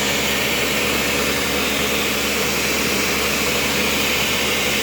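Electric countertop blender running steadily, a continuous motor hum with the whir of the blades.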